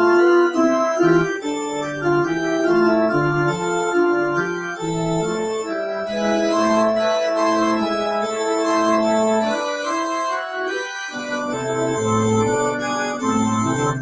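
Organ playing held chords with a moving line of notes, most likely the closing postlude after the benediction.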